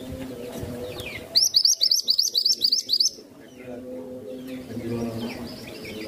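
Minivet (mantenan) singing a fast run of about ten loud, high, rising-and-falling chirps over under two seconds, with fainter chirps before and after.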